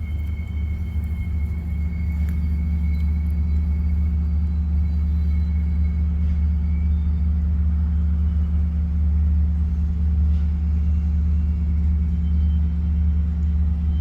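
Steady low rumble with no visible source, which he first took for trains on the track.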